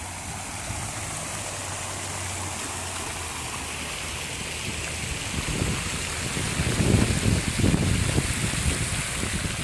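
Park fountain splashing steadily. About halfway through, low gusty rumbles of wind on the microphone join it.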